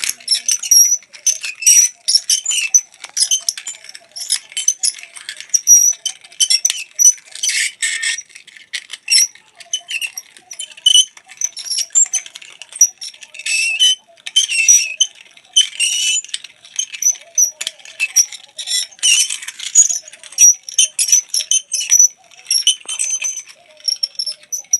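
Rapid, irregular high-pitched squeaking and creaking, short squeaks following one another several times a second with no pause.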